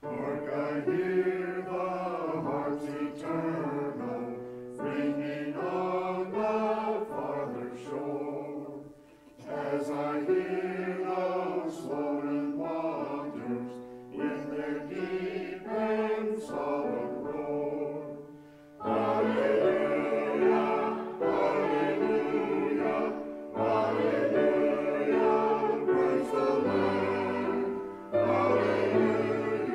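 Mixed church choir of men and women singing, growing louder and fuller a little past halfway.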